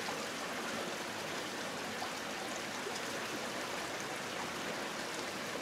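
Steady, even rushing of running water.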